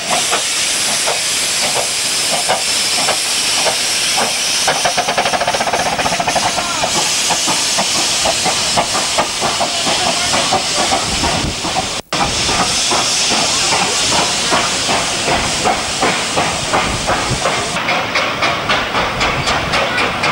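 15-inch gauge miniature steam locomotive passing close by, hissing steam over a fast, regular chuffing and clatter, followed by its coaches rolling past over the rail joints.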